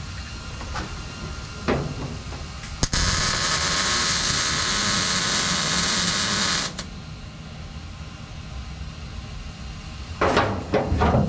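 Welding arc on sheet metal running for about four seconds, a steady hiss that starts and stops abruptly, as the shifter hump is tacked into the floor pan.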